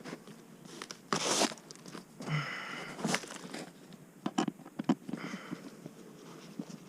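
Crinkling, scraping and rustling of hands and tools working an open beehive, with a couple of short squeaks and a few sharp knocks.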